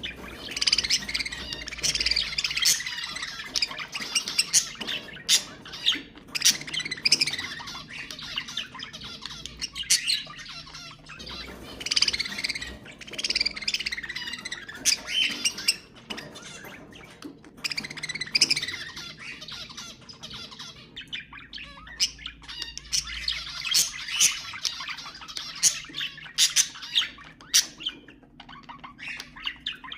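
Budgerigars warbling and chattering: fast, scratchy chatter full of clicks and squawks, coming in spells of a few seconds with short pauses between them.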